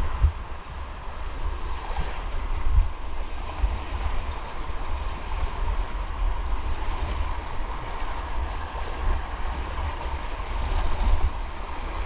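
Rushing water in a canyon stream, a steady hiss, with a low rumble of buffeting on the microphone.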